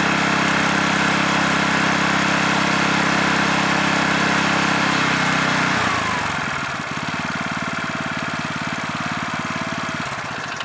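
Yanmar GA90 air-cooled single-cylinder engine on a Yanmar MRT30E cultivator, running steadily at a raised speed. About six seconds in, the revs drop and it settles into a slower, lower idle with a steady chugging beat.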